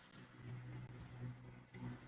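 A sleeping person's faint, low snoring breath.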